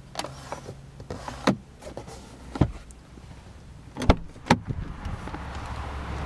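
A series of sharp plastic clicks and snaps from the car's interior trim, first at the sun visor's mirror cover, then a clack near the end as the inside door handle is pulled and the door latch releases. After that, outside noise swells as the door swings open.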